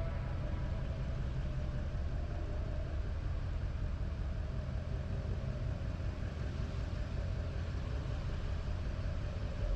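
A car moving slowly, its engine and road noise a steady low hum.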